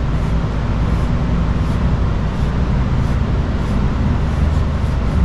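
Maroon Scotch-Brite pad being rubbed on a VW clutch cross shaft to clean it up for a new bronze bushing: a faint scratch repeats about every two-thirds of a second. Under it runs a steady low hum, the loudest sound.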